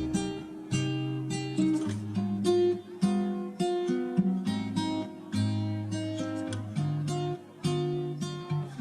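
Background music of strummed acoustic guitar chords, a new chord about every second.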